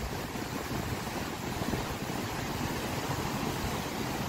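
Steady rushing of a fast, rain-swollen river, with wind buffeting the microphone.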